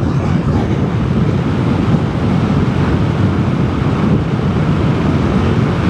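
Steady wind rush buffeting the microphone of a Vespa GTS 300 scooter under way, with the scooter's running and road noise mixed in beneath it.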